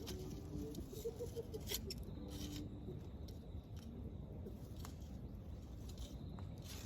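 Wood fire crackling, with scattered sharp snaps and pops over a low, steady background.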